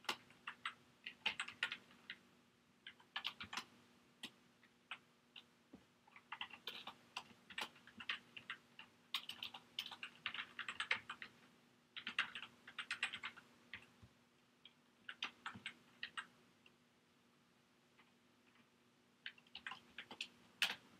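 Typing on a computer keyboard: quick runs of keystrokes broken by short pauses, with a longer pause of a couple of seconds near the end.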